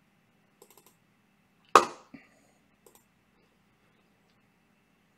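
Mostly quiet, with a few faint clicks and one sharp tap about two seconds in.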